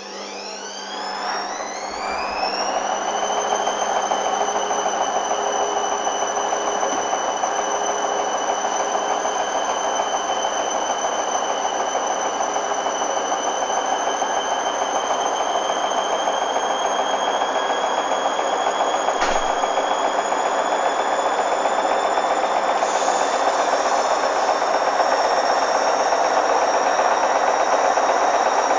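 Hoover Dynamic washing machine's motor spinning the drum up: a whine that rises quickly over the first couple of seconds, then holds steady at high speed over a loud rushing noise.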